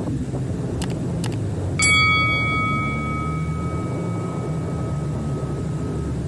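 Two sharp clicks, then a single bell-like ding a little under two seconds in that rings out and fades over a few seconds: a subscribe-button sound effect. Beneath it, the steady low running of a 1996 Force 120 hp inline four-cylinder two-stroke outboard at speed.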